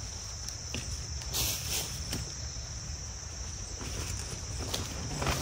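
Steady high-pitched drone of an insect chorus, with a few faint clicks and rustles over a low rumble.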